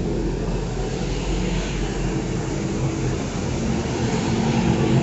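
A road sweeper's engine running steadily as it passes, with the hiss of its sweeping brushes on the road growing stronger in the middle.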